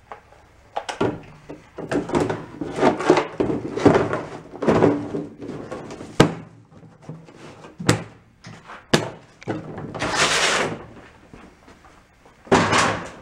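Hard plastic chainsaw carrying case being handled on a steel workbench: clatter and knocks as the saw is set into it, sharp clicks as the lid is shut and latched, then longer scraping rushes as the case is moved off the table.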